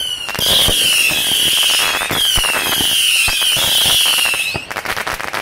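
Fireworks going off: a string of about five whistles, each falling in pitch, over many sharp pops and crackles. Near the end there is a dense burst of crackling.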